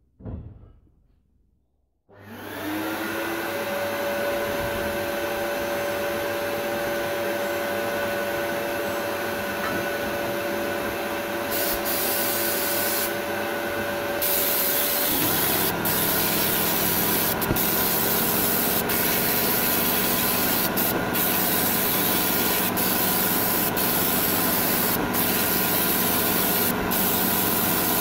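Abrasive blast cabinet: a steady vacuum-like drone with a few held tones starts about two seconds in. From about twelve seconds in, the blast gun hisses as abrasive strips rust from a steel wheel, first in two short bursts and then steadily, with many brief breaks where the trigger is let off.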